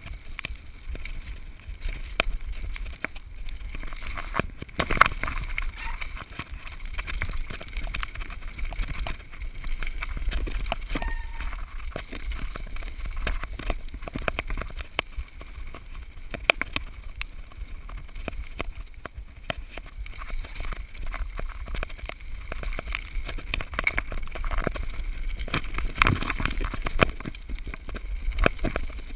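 Mountain bike riding fast down a rough, wet trail, picked up by a GoPro: a steady low wind rumble on the microphone, with tyres running over dirt and stones and frequent knocks and rattles from the bike over the bumps.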